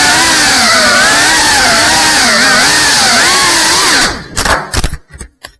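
Small FPV quadcopter's brushless motors and ducted 3.5-inch propellers whining, the pitch rising and falling with quick throttle changes. About four seconds in, the sound breaks up into short choppy bursts with gaps and then drops out.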